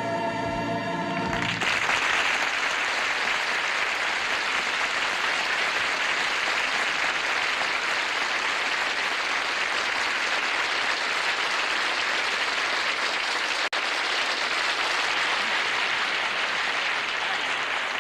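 A choir and band hold a final chord that stops about a second and a half in, then a studio audience applauds steadily, with a momentary dropout about two-thirds of the way through.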